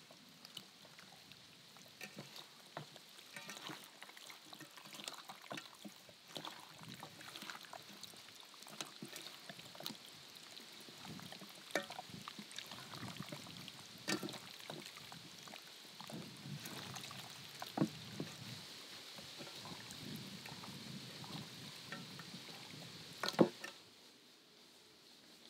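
Hands kneading pieces of wild boar in a thick marinade in an enamel bowl: irregular wet squelching and clicking, with one louder click near the end, stopping shortly before the end.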